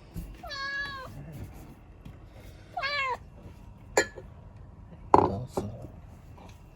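Domestic cat meowing twice, with bending, chirpy calls, as it begs for food. A sharp click follows, then a louder thump near the end.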